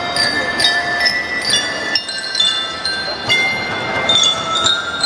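A drum band's bell lyras and mallet percussion playing a melody of quick struck metal notes that ring on.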